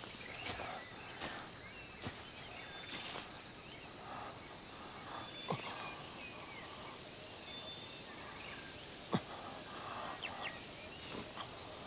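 Outdoor nature ambience: a steady high-pitched insect drone with scattered short bird chirps and a few sharp snaps or clicks, the loudest about nine seconds in.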